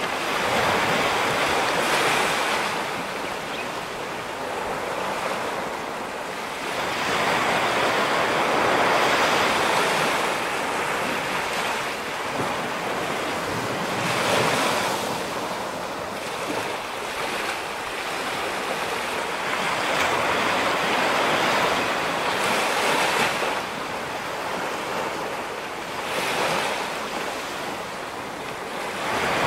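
Ocean surf: waves breaking and washing back, the sound swelling and falling away every three to six seconds.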